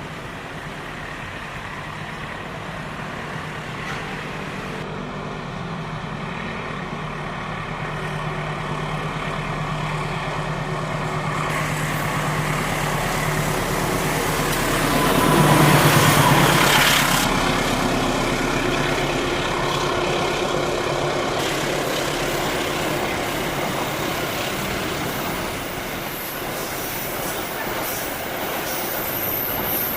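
Diesel locomotive of a container freight train approaching and passing, its low engine drone growing steadily louder to a peak about sixteen seconds in, then the train rolling on past.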